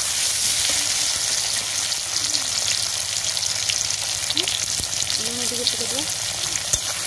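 Sliced onions and bay leaves frying in hot oil in a steel kadai: a steady sizzle, with the scrape and tap of a metal spatula stirring them.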